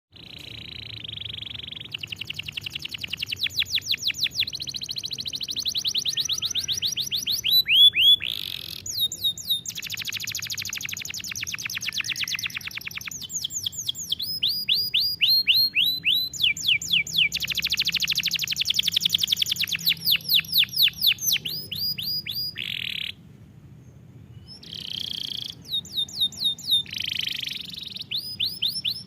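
A domestic canary singing a long song of fast trills and rolls, with phrases of rapidly repeated sweeping notes that change every few seconds. There is a short break about three-quarters of the way through.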